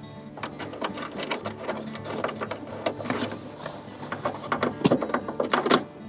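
Ratchet wrench clicking in quick, uneven runs as the upper shoulder-belt anchor bolt of a 3-point seat belt is tightened into the car's roof pillar.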